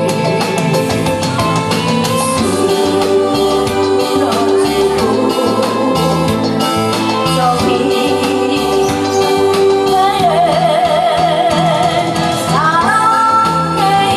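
A woman singing into a microphone over amplified backing music with a bass line and a steady beat. About ten seconds in she holds a note with a strong, wavering vibrato, then moves to higher sustained notes near the end.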